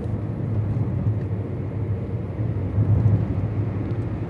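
Steady low rumble of a car's engine and tyres on the road, heard inside the moving car's cabin.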